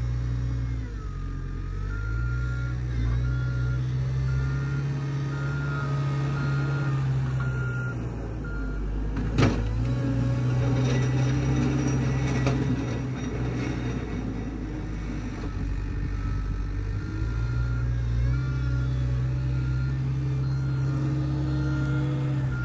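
Caterpillar 906 compact wheel loader's diesel engine revving up and dropping back in turns while it manoeuvres, with its backup alarm beeping about twice a second in two spells as it reverses. A single sharp knock about nine seconds in.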